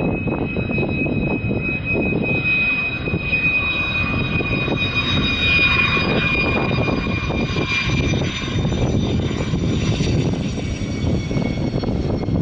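F-16 fighter jet's engine during landing and rollout: a steady jet roar with a high whine that drifts slightly lower in pitch as the jet slows down the runway.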